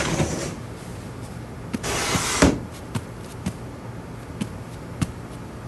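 Sliding room door sliding open with a short rush of noise about two seconds in, followed by a few separate light, sharp taps.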